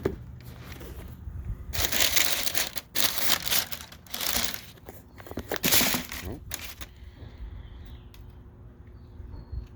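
Tissue paper crinkling and rustling in several loud bursts over about five seconds as the shoes are taken out of the wrapping in their box.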